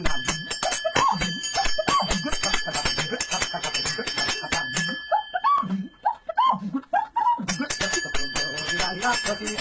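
A small bell rung rapidly and continuously, its ringing stopping for about two seconds past the middle and then starting again. A voice calls out in rising and falling sounds over it.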